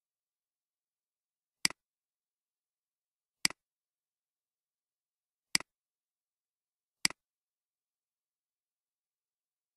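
Computer mouse clicks: four sharp clicks, about one and a half to two seconds apart, as points and geometry are picked in CAD software.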